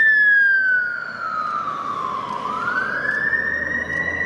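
Fire engine siren wailing in one slow sweep, falling in pitch until a little past halfway, then rising back up, over a faint low hum.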